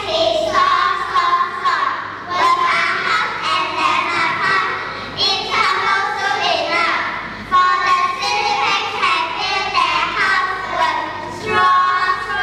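A group of young children singing together in unison, phrase after phrase with no break.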